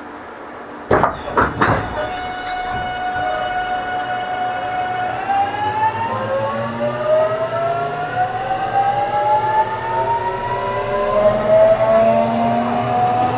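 Toshiba GTO-thyristor VVVF inverter of a JR Kyushu 813 series motor car pulling away. After three sharp clunks about a second in, a whine holds at one pitch for a few seconds. From about five seconds in it glides steadily upward in several layered tones as the train accelerates.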